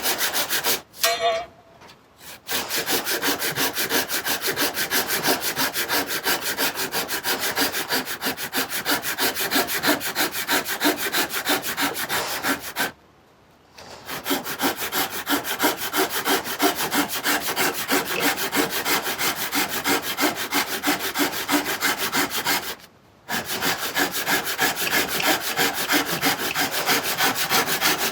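A hand tool worked rapidly back and forth on wood, sawing or sanding the repaired chair leg in quick rubbing strokes, with three short pauses.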